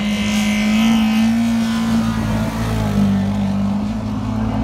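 Rallycross car engine running hard at high, fairly steady revs as the car drives along the track.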